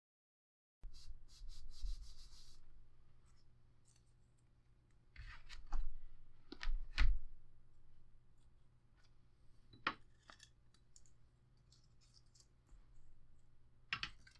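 Hands handling a ring-bound paper-covered book and small cardstock pieces: a rubbing of palms on the paper cover starting about a second in, then several light taps and clicks as pieces are set down and moved.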